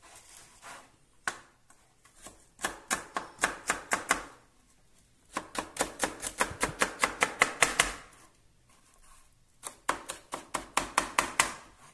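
Kitchen knife chopping garlic cloves on a plastic cutting board: three runs of quick, even chops, about five a second, with short pauses between them.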